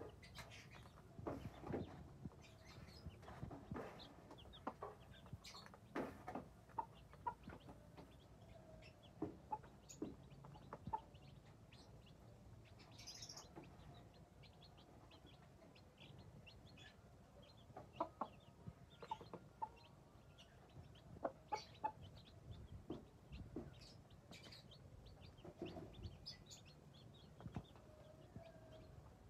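Mother hen clucking while her young chicks peep, the birds pecking at grain on a concrete floor, with scattered short sharp taps.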